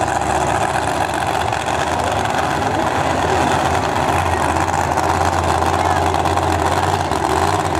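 Monster truck engine running steadily at low revs as the truck creeps forward.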